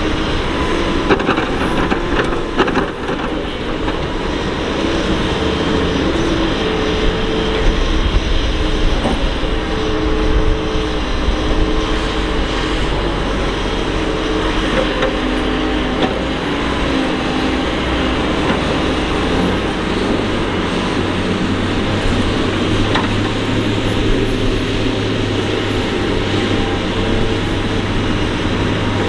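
Doosan DX225LC excavator's diesel engine running under load as it digs and swings, its pitch rising and falling with the work. There are a few knocks near the start.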